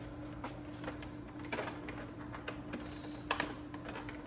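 A few scattered, irregular keyboard clicks over a steady low hum.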